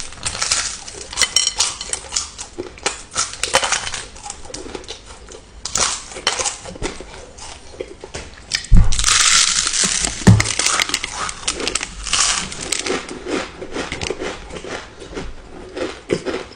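Close-miked popcorn being chewed and crunched, with many small crisp crackles. About nine seconds in comes a louder stretch of rustling with two dull thumps.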